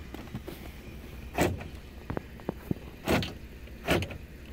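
Power door lock actuators of a 2010 Ford F-150 clunking as the lock switch is worked: three short clunks, the first about a second and a half in and the last two close together near the end, with lighter clicks in between. It is a test of whether a newly installed Dorman 937-677 rear door lock actuator now works.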